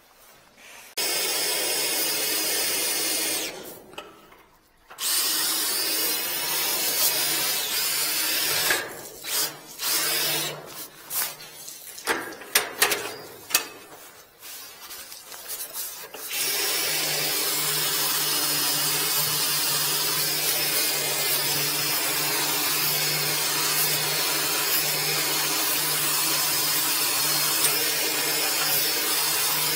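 Electric drain-cleaning machine running, its motor spinning a cable inside a clogged horizontal apartment drain pipe to clear the blockage. It starts and stops in short spurts for the first half, then runs steadily from about halfway on.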